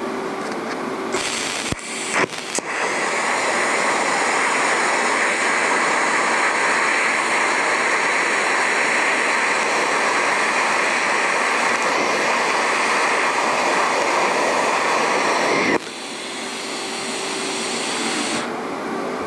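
TIG welding arc: a steady hiss that starts with a few sharp clicks about two seconds in and cuts off suddenly near the end. A fainter hiss lingers for about three seconds after the arc stops.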